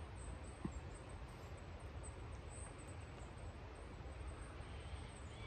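Faint outdoor woodland background: a low steady rumble and soft hiss with no distinct event.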